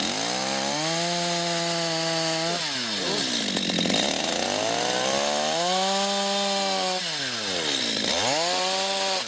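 Chainsaw revved up three times, each time held at a steady high pitch and then dropping back, with the bar working into a tree trunk.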